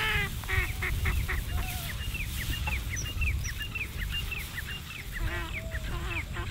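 Birds calling: a quick run of short, high, downward-slurred calls, with harsher honking calls at the start and again about five seconds in, over a low rumble.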